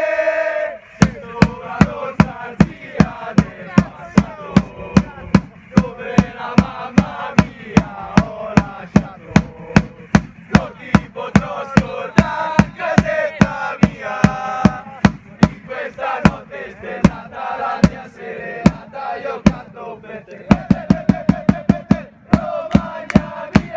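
Group of football fans chanting together over a drum beaten steadily, about two to three strikes a second. The drumming quickens briefly near the end.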